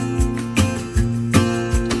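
Background music: strummed guitar over a steady beat.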